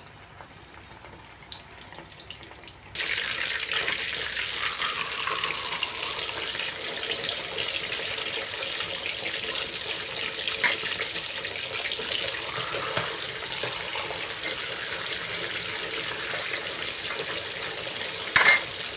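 Whole mujair (Mozambique tilapia) fish deep-frying in oil in a steel wok. For the first three seconds the oil, not yet fully hot, gives only faint scattered crackles; then a loud, steady sizzle and crackle of hot oil begins abruptly and carries on, with a brief louder burst near the end.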